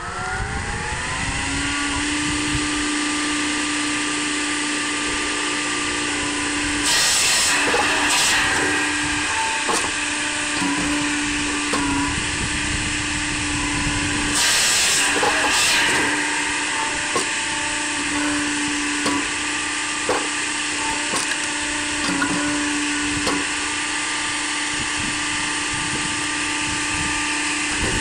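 Homemade firewood processor running with a steady hum, its saw cutting through a log twice: about seven seconds in and again about halfway, each cut a louder burst lasting a second or two.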